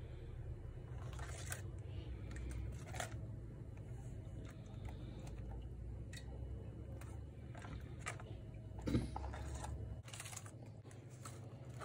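A metal ladle spooning milk over a güllaç pastry sheet in a metal tray: a few faint clicks and light taps, one slightly louder bump about nine seconds in, over a low steady hum.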